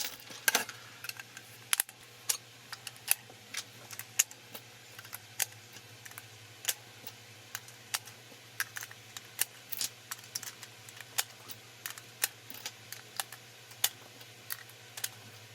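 Cartridges being pressed one by one into a Magpul TMAG 30-round rifle magazine, a sharp click with each round, about one to two a second.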